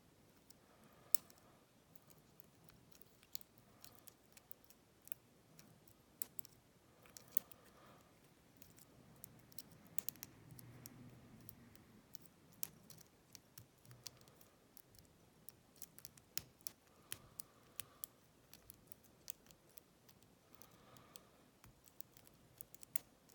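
Lock pick clicking and scraping against the pins inside a Lane 25mm padlock during picking: faint, irregular small metallic clicks, a few sharper ones standing out.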